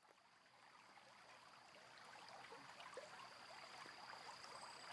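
Near silence: the faint running noise of a moving passenger train, slowly fading up, with a thin steady high whine over it.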